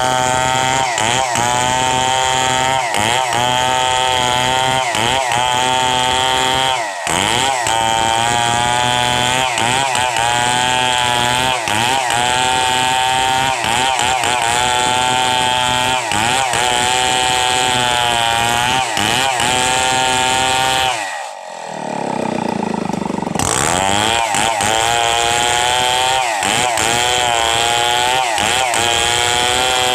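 Stihl MS 070 two-stroke chainsaw running hard while cutting coconut trunk, its pitch dipping briefly about once a second as the chain bites. About two-thirds of the way through it falls to a lower note for a couple of seconds, then revs back up.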